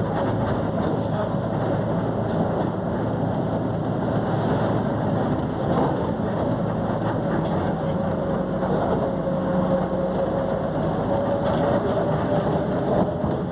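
Volkswagen 17.230 OD bus on the move with its differential droning loudly: a steady whine that climbs slightly in pitch toward the end, over road rumble and scattered rattles.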